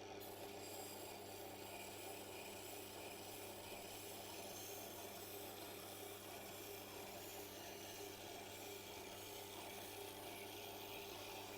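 Knife edge being honed freehand on a Tormek sharpener's turning honing wheel to strip the burr: a faint, steady rubbing hiss over the machine's low motor hum.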